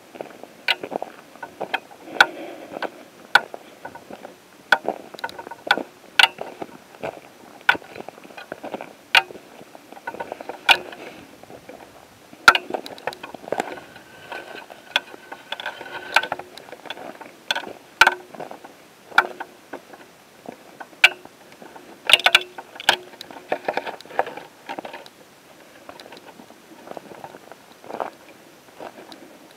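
Footsteps on dry grass and rocky ground while walking, one sharp crunching step roughly every second, with brush and clothing rustling between steps.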